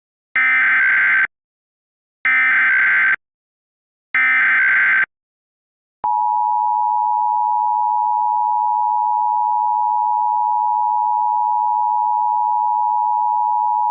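Emergency Alert System SAME header: three short bursts of digital data tones, each about a second long and about two seconds apart. About six seconds in, the steady two-tone EAS attention signal begins and holds for about eight seconds, the sign that an emergency alert message is about to be read.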